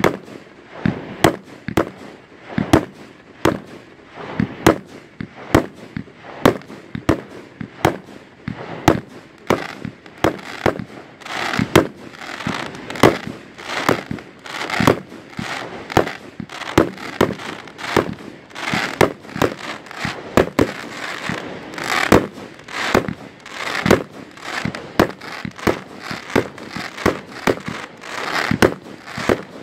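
Aerial fireworks bursting in rapid succession: a steady series of sharp bangs, about one to two a second, with crackling between them.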